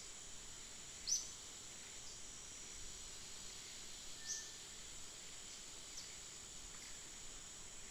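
Steady high drone of insects, with two short high chirps, the louder about a second in.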